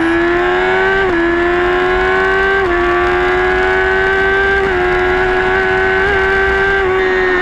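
Kawasaki ZX-10R's inline-four engine under full-throttle acceleration, its pitch climbing steadily and dropping quickly at three upshifts, about one, three and five seconds in, then holding nearly level near the end.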